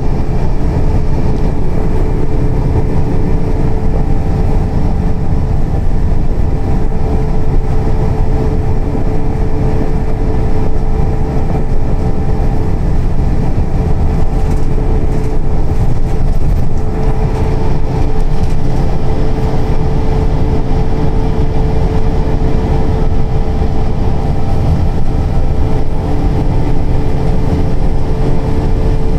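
Scania K340 coach under way, heard from inside the cabin: a steady low rumble of diesel engine and road noise with a constant whine running through it.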